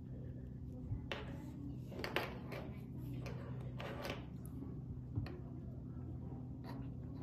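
Light clicks and rustles of fingers handling and twisting thin stripped copper wire strands, over a steady low hum.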